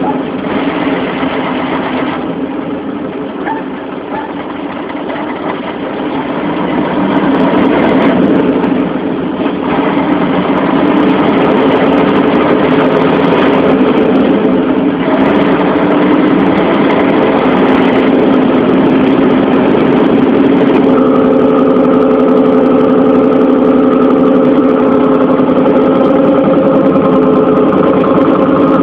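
Engine of a heavy grain-hauling vehicle running steadily. It grows louder about seven seconds in and holds that level, with a higher tone joining in near the end.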